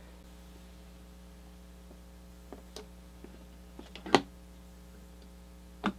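Small clicks and taps of a metal waterblock being handled and set onto a motherboard, a few light ones in the middle and a sharper click a little after four seconds, then another near the end, over a steady electrical hum.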